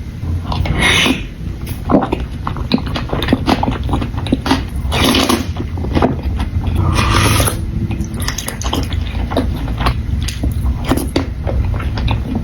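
Close-miked eating of soup dumplings: many short, wet mouth clicks from chewing, and three longer noisy slurps spread through.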